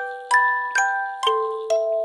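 Slow instrumental music of bell-like struck notes, about two a second, each ringing on and overlapping the next.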